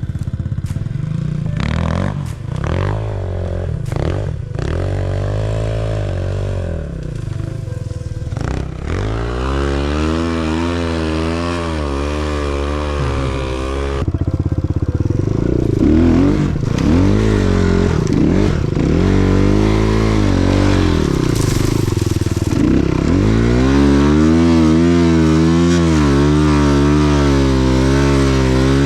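Enduro motorcycle engine revving up and down over and over while riding off-road, its pitch rising and falling every second or two. Knocks and clatter come in the first few seconds.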